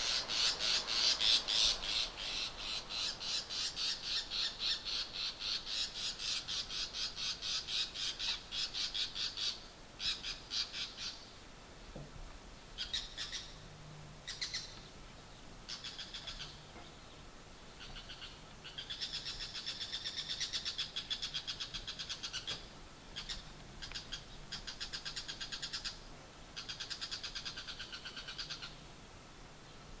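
Male bull-headed shrike giving its shrill autumn territorial "high call": rapid harsh notes repeated several times a second in one long loud series, then in shorter bouts broken by pauses. It is claiming a feeding territory.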